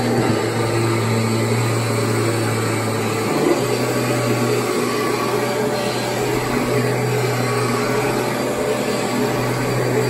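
Kirby G5 upright vacuum cleaner running steadily with a low motor hum as it is pushed over carpet.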